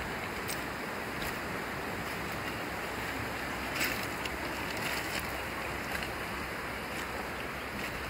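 A creek swollen after two days of rain, running steadily over stones and past a fallen log, with a few faint clicks scattered through it.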